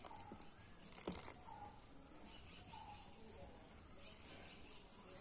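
Faint scraping of a spoon stirring flour and coconut milk into a wet batter in a plastic bowl, with one louder scrape or knock about a second in. A short chirp repeats about every second and a half in the background.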